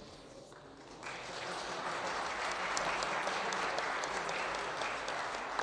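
Applause from the deputies in the parliamentary chamber, starting about a second in and then holding steady.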